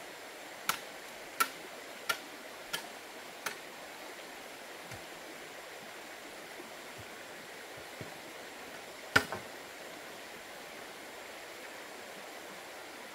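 Sharp knocks on bamboo, about one every 0.7 seconds and growing fainter, stopping after about three and a half seconds; about nine seconds in comes one loud knock with a quick smaller one after it. A steady rush of a shallow stream runs underneath.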